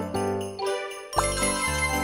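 Cartoon Christmas background music with jingle bells. A little past halfway it drops away briefly, then comes back with a short rising swoop: a magic transformation sound effect.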